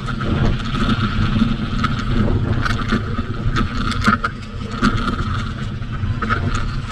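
Mountain bike riding downhill on a dirt trail: tyres rumbling over the ground, wind buffeting the camera microphone, and frequent clicks and rattles from the bike over bumps.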